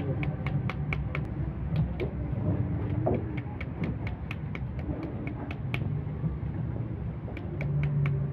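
Kitchen knife rapping the rind of a halved pomegranate to knock its seeds out: sharp, quick taps about four a second, with a short pause before a last few taps near the end. A steady low rumble of street noise runs underneath.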